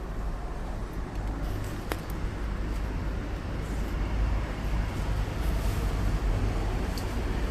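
Steady low rumble of background noise, like road traffic, with a single sharp click about two seconds in.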